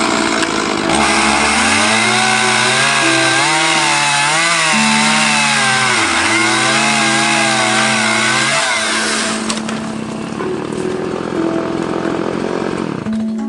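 Chainsaw running and revving up and down, easing off after about nine seconds and fading away, over background music with steady held notes.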